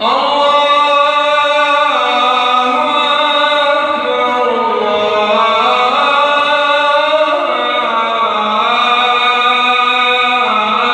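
A man's solo voice chanting over the loudspeakers of the Masjid al-Haram, long held notes that glide slowly from pitch to pitch, with the echo of the open courtyard.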